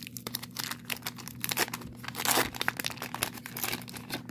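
Wax-paper wrapper of a 1990 Donruss baseball card pack being torn open and crumpled by hand, a run of crinkling crackles that is thickest about two seconds in.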